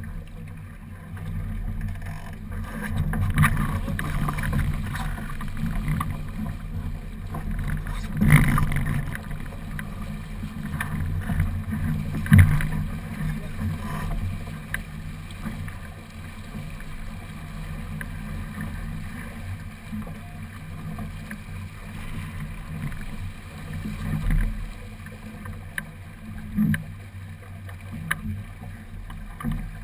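Water rushing along the hull of a small racing keelboat under sail, heard from a camera mounted on board: a steady low rumble with a few sharper knocks and thumps, the loudest two near the middle.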